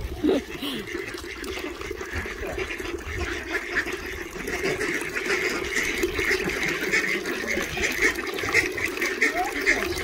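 Running water, with poultry calling over it; the water grows a little louder toward the end.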